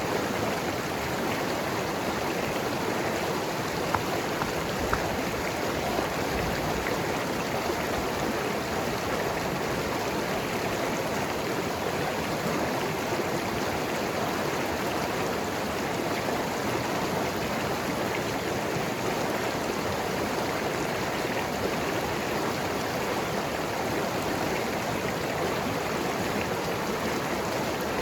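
Mountain river flowing and gurgling over rocks, a steady rush of water with a few small splashes.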